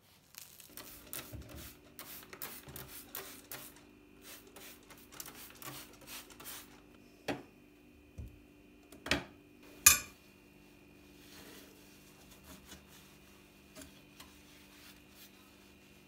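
Dishes and cutlery being handled: a run of light clinks and clatters, then three sharper knocks, the loudest about ten seconds in, over a steady hum.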